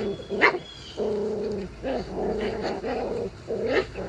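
Month-old Icelandic Sheepdog puppies yipping and whining: a string of short pitched cries about half a second each, with a sharper yip near the start and another near the end.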